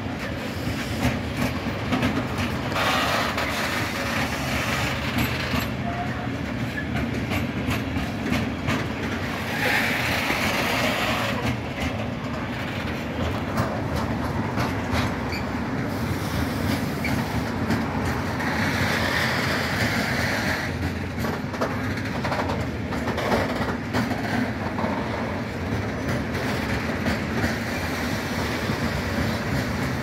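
Freight train of four-axle Eas open wagons rolling past close by: a steady low rumble with the clickety-clack of wheels over the rail joints. Three times a higher hiss from the running gear rises and fades.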